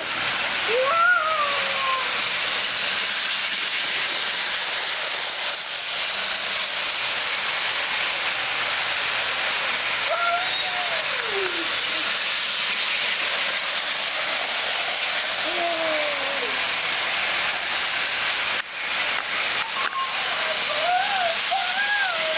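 Lionel toy train running on its track, a steady loud rushing noise that starts suddenly at the outset, with a child's short high squeals over it a few times.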